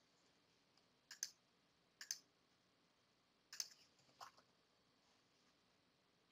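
Faint clicks of a computer mouse and keyboard during desktop work: about half a dozen short, sharp clicks in four small groups over the first four and a half seconds, several of them coming as quick pairs.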